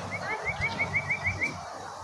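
A bird calling: a quick, even series of about nine short rising chirps, lasting about a second and a half.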